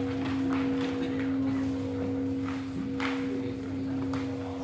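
Buddhist monks chanting in unison on one steady pitch, with irregular sharp papery slaps as accordion-folded sutra books are fanned open and snapped shut in a tendoku sutra reading.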